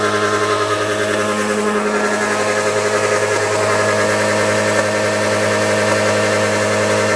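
A Mitsubishi car engine idling steadily, close by with the hood open. Its oil filler cap is off and apple juice is being poured into the engine oil.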